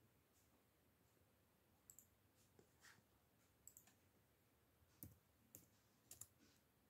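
Faint, scattered clicks of a computer mouse and keyboard keys, several close together near the end.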